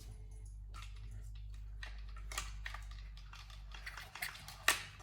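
Light clicks and taps of small metal tools and chainsaw parts being handled on a workbench, coming thicker and sharper in the last second or so. A steady low hum runs under them for most of the stretch.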